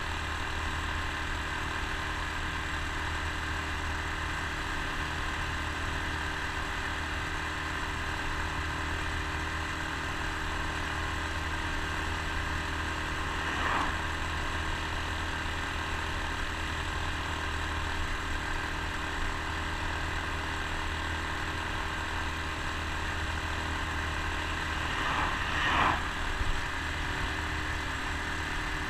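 Honda Super Cub C125's single-cylinder four-stroke engine running at a steady cruise, heard from the rider's seat with road and wind noise. There are two brief louder swells, about halfway through and near the end.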